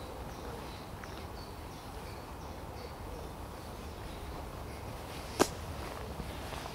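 Quiet outdoor ambience with a low rumble underneath and a run of short, high chirps during the first few seconds. A single sharp click about five and a half seconds in is the loudest sound.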